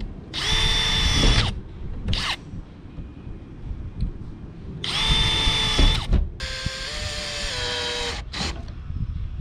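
Power drill running in several bursts of about a second, with short blips between, drilling the screw holes for a roof fan's mounting flange in a van's roof. The motor's whine winds down at the end of each burst, and one longer run goes at a lower pitch that steps down.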